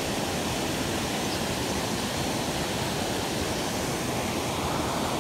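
Shallow river water running over stones, a steady, even rush.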